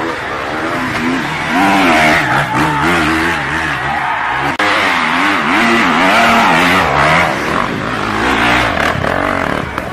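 Dirt bike engines revving hard under load on a steep hill climb, the pitch rising and falling again and again as the throttle is worked.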